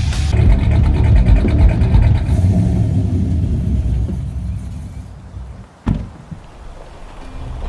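Car running with a low engine and road rumble that fades away over a few seconds, followed by a single sharp thump.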